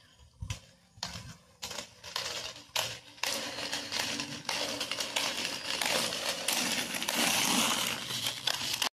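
Roller skate wheels rolling over rough asphalt: a gritty, clicking rattle that grows louder as the skater comes up close.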